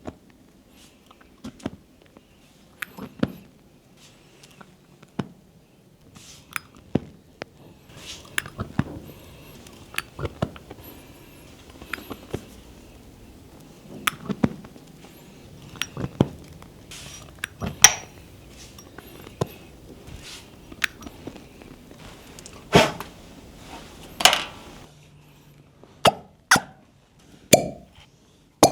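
Irregular sharp clicks and soft slaps from a cupping and massage treatment on bare skin: cups and hands handled against the body. There are a few louder bursts in the second half.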